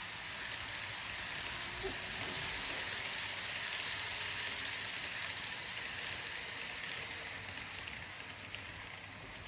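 Kato N-gauge Twilight Express Mizukaze model train running on its track: a steady rolling whirr of motor and wheels that fades over the last couple of seconds.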